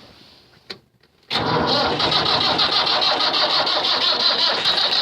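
Electric starter cranking the cold diesel engine of a 1494 tractor. It kicks in suddenly about a second in, after a short click, and runs on steadily with a fast, even pulsing as the engine turns over on a weakening battery.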